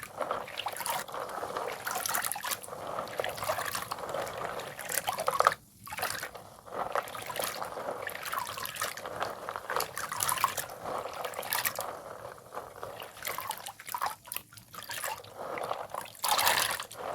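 Broken coloured chalk soaked in water, crumbling wetly: a dense run of small crackles with trickling and dripping water, broken by two short pauses, about six seconds in and near fifteen seconds.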